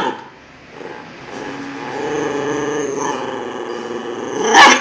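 Dog growling, a long drawn-out growl while it guards its collar, with a short loud burst near the end.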